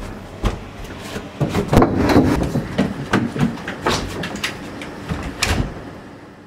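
A rapid series of knocks, bumps and rattles, busiest about two seconds in, then dying away.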